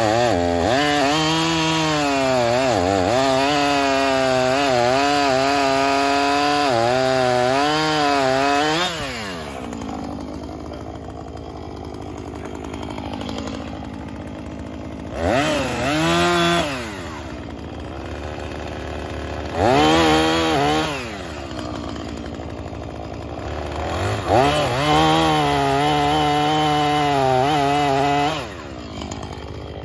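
Husqvarna 445 two-stroke chainsaw running at full throttle in a cut for about nine seconds, its pitch wavering under load, then dropping back to idle. It is revved up three more times, the last burst longest, before settling to idle near the end.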